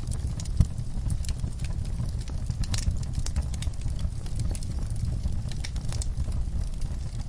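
Wood fire burning in a fireplace: a steady low rumble of flames with irregular sharp crackles and pops, one louder pop about half a second in.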